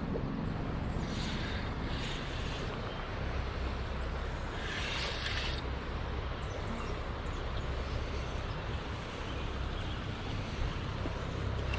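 Steady rushing of a high, flood-swollen creek, with a low wind rumble on the microphone. Brief louder hissy surges come about a second in and again around five seconds.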